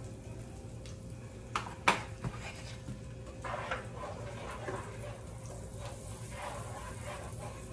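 Shallots sautéing in butter in a hot pan, a low steady sizzle, with kitchen utensil clatter: a sharp click about two seconds in and a few softer knocks and scrapes after it.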